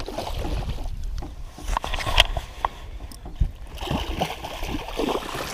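A hooked musky thrashing and splashing at the water's surface beside a boat, with scattered sharp clicks and knocks.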